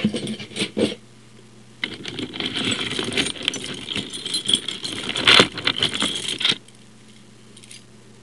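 A bunch of metal try-out keys jangling and clinking as they are sorted through, a short burst of clinking at first, then a longer run of rattling that stops about two-thirds of the way through.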